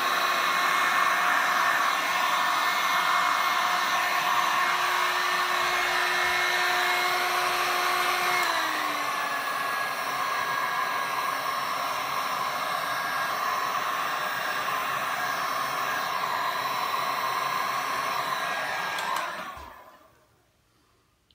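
Handheld electric heat gun blowing hot air over wet epoxy resin: a steady rushing hiss with a motor whine that dips slightly in pitch about eight seconds in. It is switched off near the end and winds down quickly to silence.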